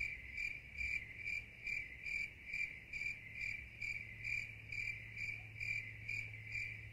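Crickets chirping in an even rhythm, about two chirps a second, over a steady low hum.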